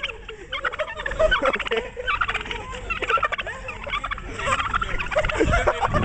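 Domestic white turkeys gobbling close by: rapid rattling calls in several runs with short gaps between them. Near the end there are low knocks and rumble from the phone being handled.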